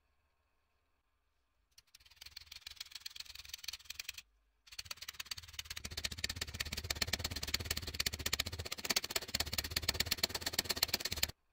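Rapid, even metal taps of a small hammer peening the pins of a pocket knife during reassembly. One run of tapping starts about two seconds in and breaks off briefly; a longer run then goes on until it stops suddenly near the end.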